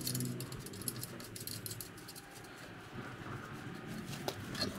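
Gloved hands handling metal parts at a Jeep's rear brake backing plate: scattered light clicks and rustling, with two sharper clicks near the end.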